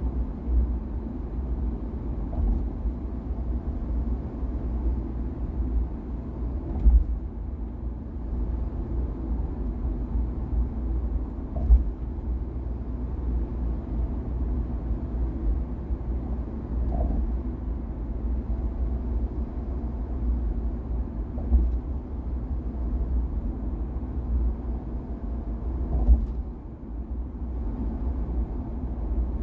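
Steady low road rumble of a car driving at speed, with three or four short thumps.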